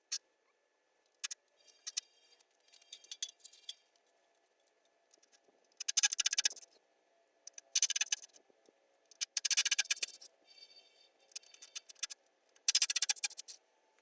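Cordless power driver backing screws out of a wooden post: four bursts of rapid clicking, each under a second long, with lighter ticks and scraping between them.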